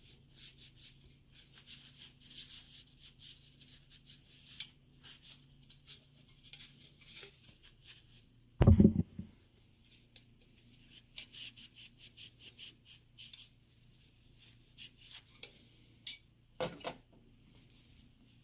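Repeated short rubbing strokes of wiping dried-out thermal paste off a CPU heatsink's base, with a heavy thump about halfway through and a lighter knock near the end.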